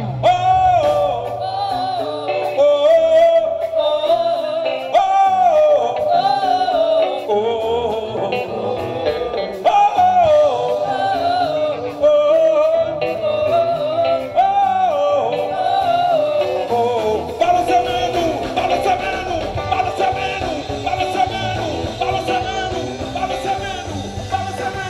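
Live band music: a wandering melodic lead line carries over the full band, with no words sung.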